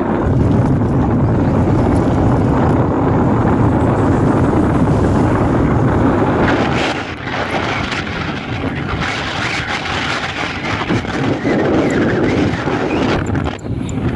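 Motorcycle riding along a road, heard from the rider's own camera: engine and wind rushing together in a steady, loud noise that eases a little about seven seconds in.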